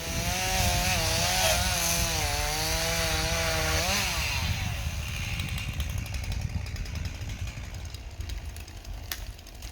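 Chainsaw running at high revs, its engine note steady with slight wavering. About four seconds in the note sweeps and cuts out, leaving a broad rushing noise that slowly fades.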